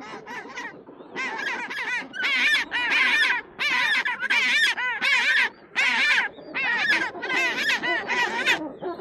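African penguin braying: a long run of harsh, rapidly repeated call notes in about ten groups separated by short pauses, fading out just before the end.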